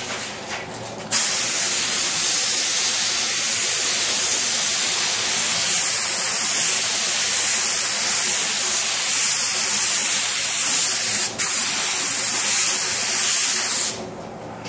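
Iwata gravity-feed spray gun spraying paint: a steady hiss of compressed air and atomised paint that starts about a second in, breaks off once briefly near the end, and stops shortly before the end.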